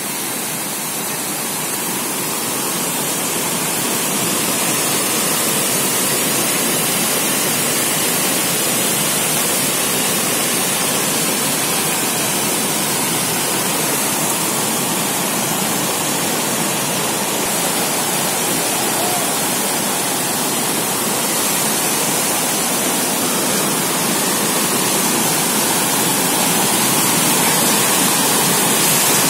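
Monsoon-swollen stream rushing and cascading over rock steps below a waterfall: a steady, loud rush of water that grows slightly louder toward the end.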